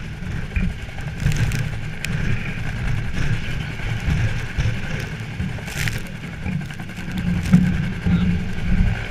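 Helicopter running close overhead: steady, choppy rotor and engine noise.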